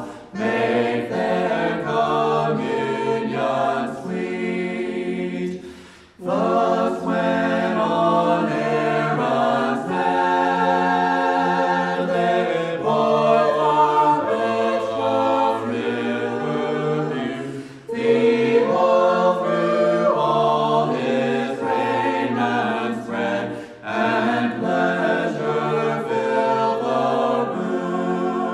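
Unaccompanied choir singing a hymn in harmony, a cappella, phrase by phrase with brief breaths between the phrases.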